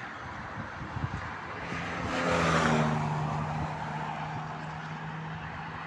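A motorcycle passing by at motorway speed, loudest about two and a half seconds in, its steady engine note fading slowly as it goes away.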